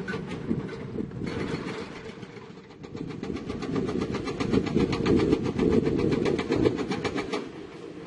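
Hydraulic rock hammer on an excavator pounding rock in a fast, even run of about ten blows a second, over the excavator's diesel engine. The hammering starts about three seconds in and cuts off suddenly near the end.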